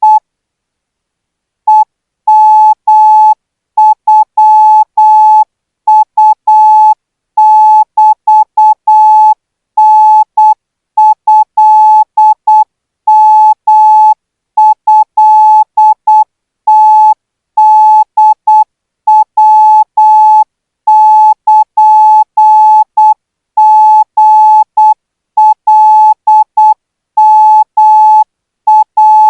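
Thai Morse code practice signal at about 12 words a minute: a single steady electronic beep keyed on and off in short and long marks, with a pause of about a second and a half near the start.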